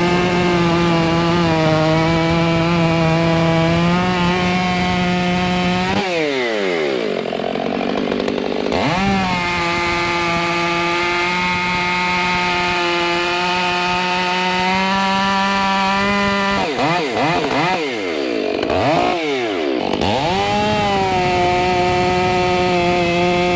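Stihl MS500i fuel-injected chainsaw cutting through logs at full throttle, holding a steady high pitch in the cut without bogging. About six seconds in, and again near the end, the revs drop and climb back up as the throttle is let off and squeezed again between cuts.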